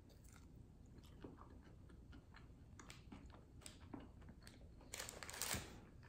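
A person chewing a bite of battered, deep-fried cheese curd: quiet, soft crunching clicks, louder for a moment about five seconds in.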